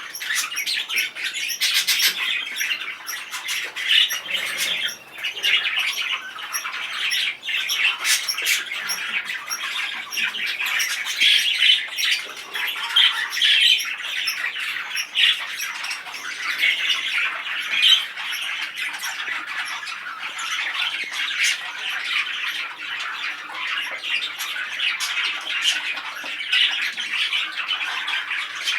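Budgerigars chattering and squawking without a break, including an excited male budgie, with frequent sharp clicks mixed in.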